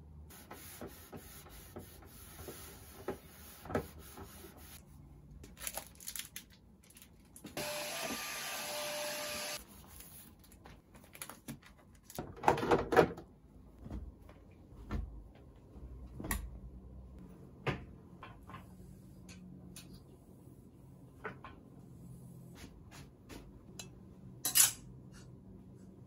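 Household handling noises: scattered clicks and knocks of objects being picked up and set down, with cloth rustling. A steady noise lasts about two seconds, and a louder cluster of knocks comes near the middle.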